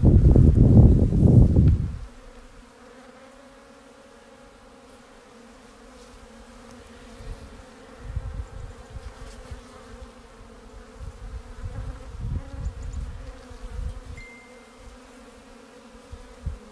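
Honeybees humming steadily over the top bars of a hive holding a newly installed swarm. A loud low rumble covers about the first two seconds, and softer low buffets come and go later.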